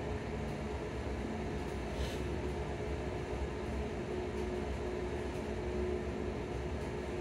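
Steady running noise inside a ScotRail Class 334 Alstom Juniper electric multiple unit at speed: the rumble of wheels on the rails with a constant hum underneath.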